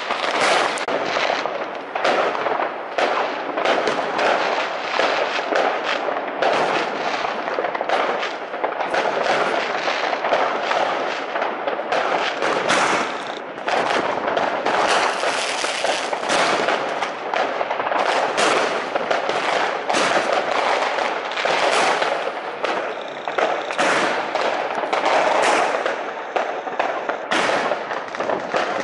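A dense, unbroken barrage of New Year's fireworks: many overlapping bangs and crackles from aerial bursts and firecrackers, with no pause.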